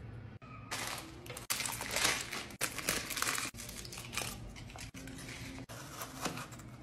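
Crinkly wrappers of Bis chocolate wafers crackling and tearing as they are unwrapped by hand, loudest in the first half; near the end a few knife strokes cut through the wafers on a wooden board.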